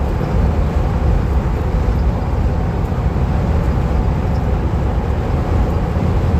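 Custom van cruising at highway speed: a steady, low rumble of engine, tyre and wind noise heard inside the cab, holding even throughout.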